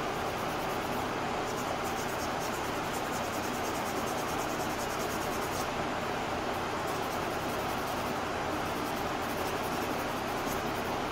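Steady rushing air noise of a ventilation fan, even in level throughout, with a faint, fine, rapid high ticking over it from about a second and a half in.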